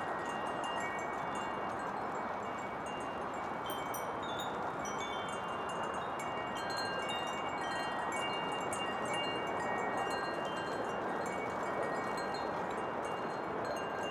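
Wind chimes tinkling at random, many short high ringing notes, over a steady rushing noise.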